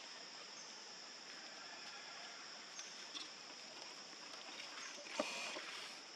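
Faint outdoor ambience with a steady high-pitched insect drone and a few short chirps. About five seconds in there is a sharp click followed by a brief rustle.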